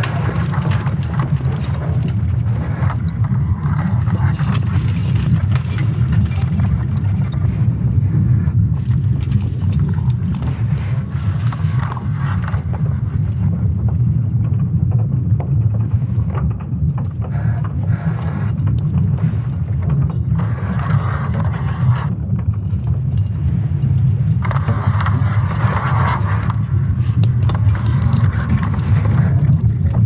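Sonified magnetic-field signals from ESA's Swarm satellites, Earth's magnetic field turned into sound along with its interaction with a solar storm: a steady deep rumbling, with crackling and creaking noise that swells in and fades several times.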